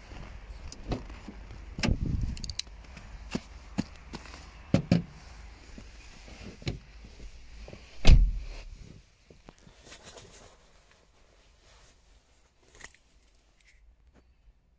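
Opel Astra J's driver door opened and a person climbing into the seat, with clicks and knocks, then the door shut with a heavy thump about eight seconds in. After the thump the outside background is shut out, leaving only a few faint clicks of keys.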